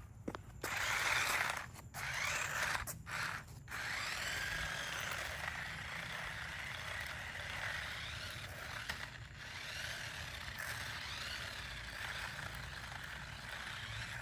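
Toy remote-control stunt car's small electric motors and plastic gearing whirring. It starts and stops in short bursts over the first few seconds, then runs on without a break, its pitch wavering up and down.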